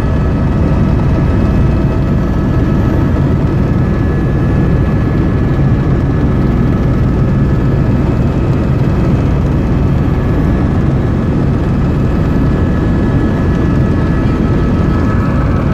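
Helicopter engine and rotor noise heard from inside the cabin in flight: a loud, steady drone with a steady high whine over it.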